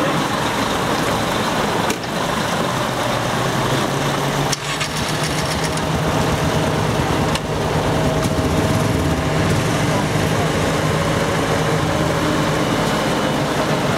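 Heavy trucks' diesel engines running as the trucks drive slowly past one after another, a steady engine drone with a clearer engine tone from about six seconds in.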